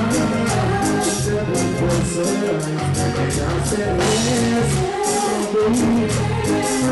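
Live reggae music played loud over a stage PA, with a heavy bass line and a steady beat, and a man singing into a microphone.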